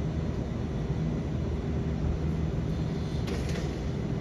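Steady low hum of a room's ventilation, with a brief soft noise about three seconds in.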